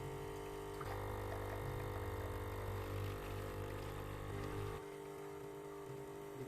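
Presso C236 capsule coffee machine's 20-bar pump buzzing steadily while brewing an espresso through a capsule; the buzz drops a little in level about five seconds in.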